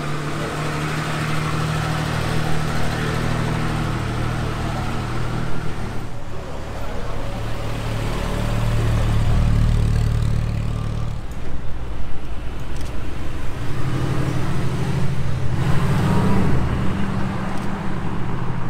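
Cars driving past in slow street traffic, one after another, their engines running at low revs.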